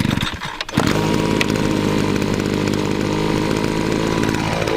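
A few knocks, then a power tool's motor starts up about a second in and runs loudly at a steady speed.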